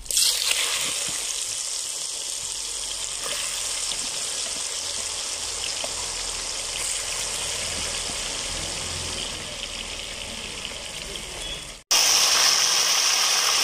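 Marinated chicken pieces deep-frying in hot oil: a steady, loud sizzle and bubbling. It breaks off about twelve seconds in and comes straight back louder and hissier.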